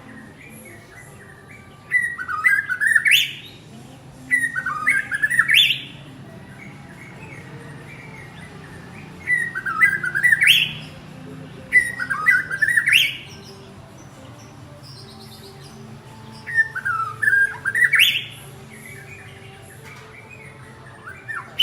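Male white-rumped shama singing five short phrases a few seconds apart, each a quick run of notes ending in a sharp rising whistle, calling to his mate.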